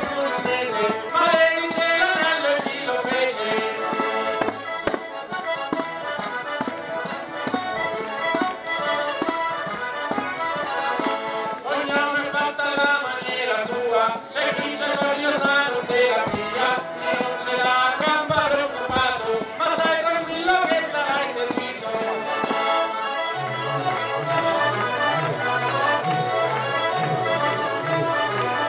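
Folk-style background music with a steady beat; a bass line comes in near the end.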